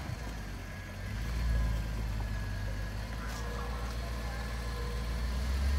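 Land Rover LR3's engine running at low revs as the SUV crawls over rocks, a low rumble that swells briefly about a second and a half in and again near the end.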